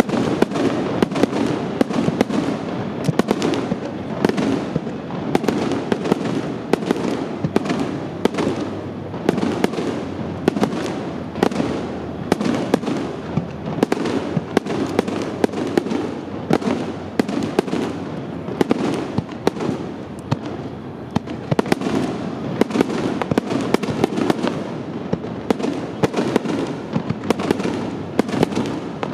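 Large fireworks display: a dense, continuous barrage of aerial shell bursts, many sharp bangs a second over an unbroken rumble of overlapping explosions.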